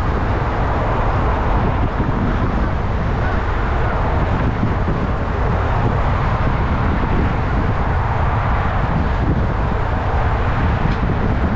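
Steady wind rush over the microphone of a bike-mounted camera at about 45 km/h, with road traffic noise underneath.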